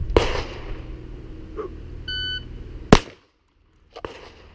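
Electronic shot-timer beep, then about a second later a single loud shotgun slug shot. A smaller click follows about a second after the shot.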